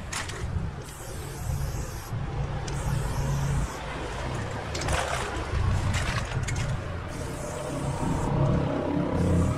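Aerosol spray-paint can hissing in several separate bursts of about a second each, over a steady low rumble of road traffic.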